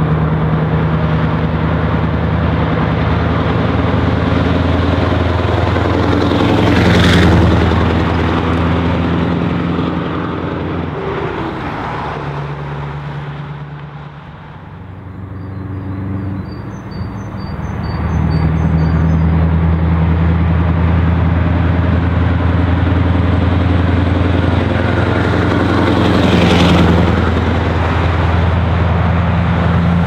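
Scania R500 truck's straight-piped V8 running at a steady engine speed as it drives past, loudest about seven seconds in. It then fades away and builds again to a second pass near the end.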